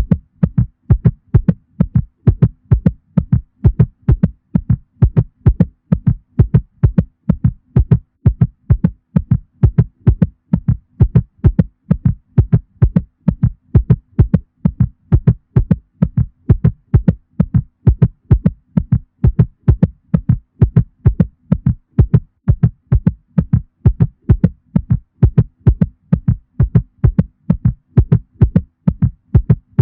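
Cat heartbeat sound effect: a steady, even rhythm of low thumps at about two beats a second, over a faint low hum.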